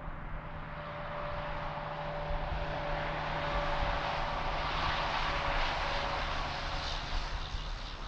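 A passing vehicle's noise swelling up to a peak about five seconds in and easing off near the end, over a steady hum.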